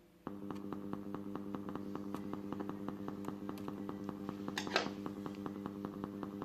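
Faulty subwoofer amplifier coming on with a steady mains-type hum through the speaker and fast, regular popping, several pops a second, with one louder crackle a little before five seconds in.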